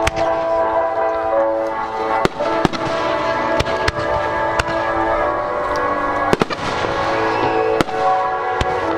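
Aerial fireworks going off in about ten sharp bangs at irregular intervals, over music with long held notes.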